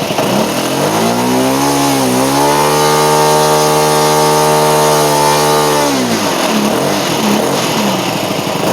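OS FS-91 Surpass II four-stroke glow engine turning a two-blade propeller on a model airplane. About a second in it revs up from idle, holds steady at high throttle for about three seconds, then drops back to idle.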